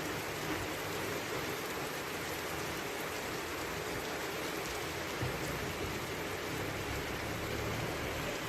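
Steady rain falling, an even hiss of drops on surfaces. A low rumble comes in about five seconds in.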